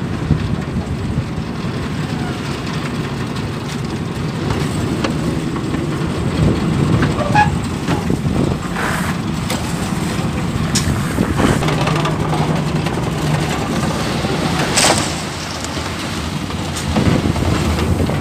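Construction machinery engine running steadily during a concrete slab pour, with scattered scrapes and knocks from shovels and a steel concrete trolley.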